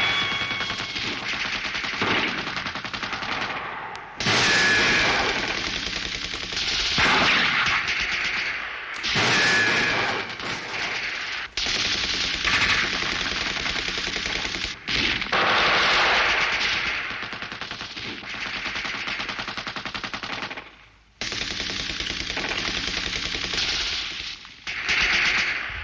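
Sustained automatic gunfire: submachine guns firing long rapid bursts, broken by short pauses, one nearly silent about four-fifths of the way in.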